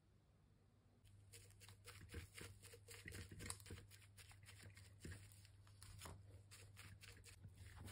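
Faint, irregular scratching and crackling as a paint-laden applicator is dabbed and rubbed against a textured stone-effect painted surface. It starts about a second in, over a low steady hum.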